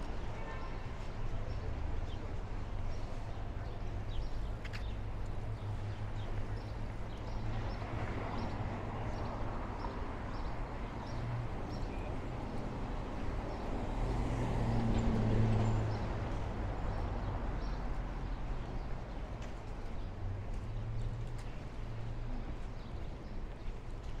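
City street ambience: a steady traffic rumble with footsteps on the pavement, and a vehicle passing, loudest about fifteen seconds in.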